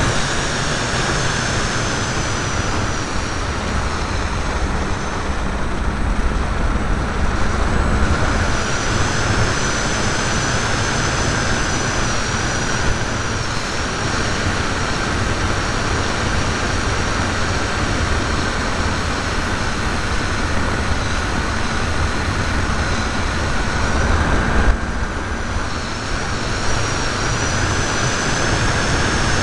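Electric motor and propeller of a ParkZone T-28 radio-controlled model plane, heard from a camera on board: a steady high whine that shifts a little in pitch a couple of times, over heavy wind rush and buffeting on the microphone.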